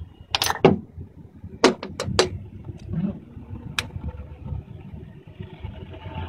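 Sharp metal clinks as Cummins 6CT pistons and their steel connecting rods are handled: a quick pair about half a second in, three close together around two seconds, and one more near four seconds, over a low steady rumble.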